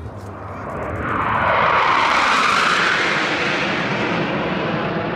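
Formation of Patrouille Suisse Northrop F-5E Tiger II jets flying past, their jet engine noise swelling to a peak about two seconds in and then easing off slowly.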